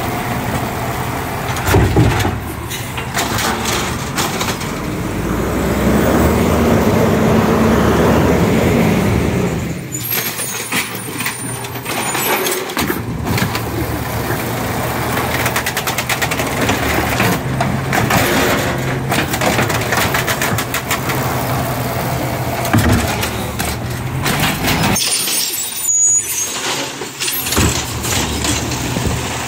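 Garbage truck engine running, louder for several seconds near the start and then settling to a steady run.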